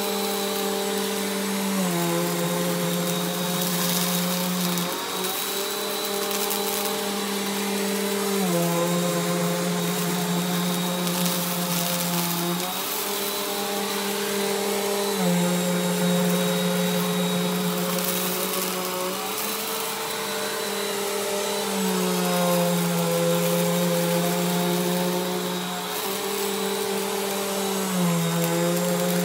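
Bissell compact upright vacuum cleaner running steadily as it is pushed back and forth over a thick shag rug. Its motor hum shifts slightly in pitch every few seconds with each stroke.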